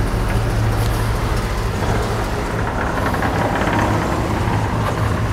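A vehicle engine running with a steady low hum.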